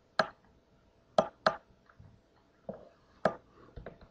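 Clicking at a computer: about six short, sharp clicks spaced unevenly, two close together about a second in, over a faint steady hum.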